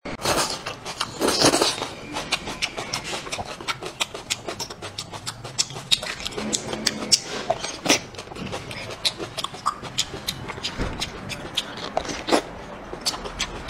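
Close-up mouth sounds of eating: frequent wet smacking and chewing clicks, with a longer, louder noisy burst about a second and a half in and a crisp bite into a small green vegetable near the end.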